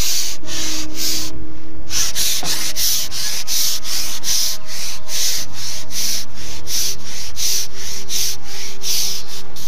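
Loud rhythmic rasping, like rubbing or scraping, about three to four strokes a second, with a hissy edge.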